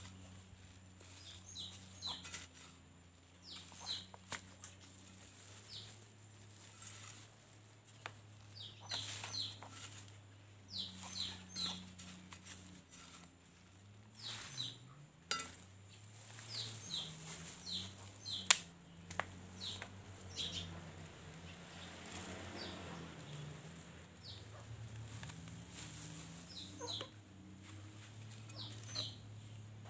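Birds chirping: many short, falling high chirps, scattered and repeated, over a faint steady low hum, with one sharp click about eighteen seconds in.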